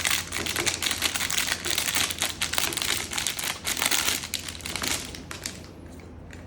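Plastic packaging crinkling and crackling as it is handled and opened, with many small clicks; it dies down about five seconds in.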